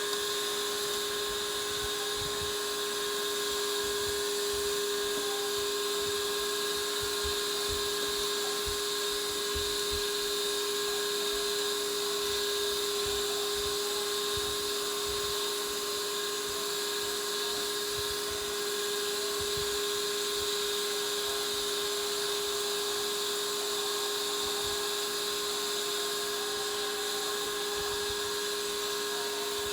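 Small electric kitchen appliance motor running steadily with a constant high whine that does not change in speed.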